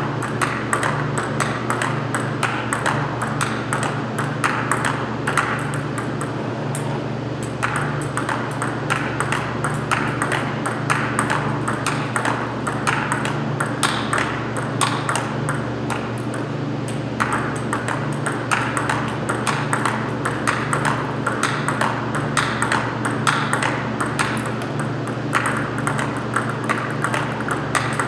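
Table tennis ball clicking rapidly and continuously off paddles and table in rally play, over a steady low hum.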